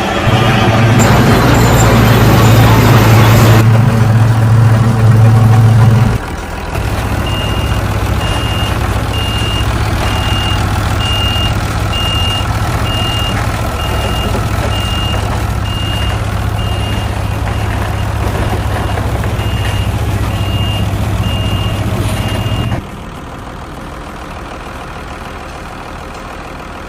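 Heavy-machine engine sound running steadily, louder for the first few seconds. It is joined by a reversing alarm beeping evenly about once a second, and both cut off near the end.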